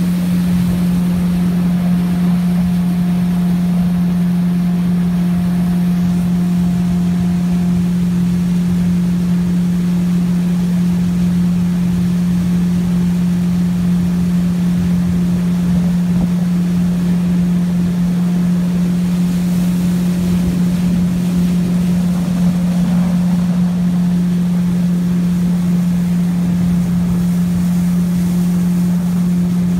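Jet boat's engine and water-jet drive running at a steady cruising speed, heard from on board: a loud, even drone with one steady low hum that holds its pitch throughout.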